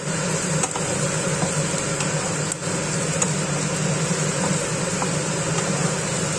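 Sliced vegetables sizzling in a non-stick wok as they are stirred with a wooden spatula, with a few light scrapes, over a steady low hum.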